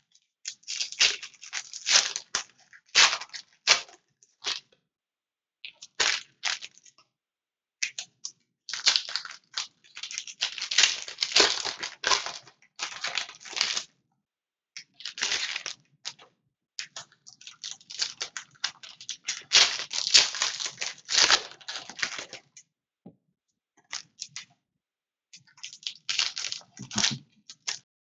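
Foil trading-card pack wrappers being torn open and crinkled by hand, in irregular bursts of crackling with pauses of a second or two between.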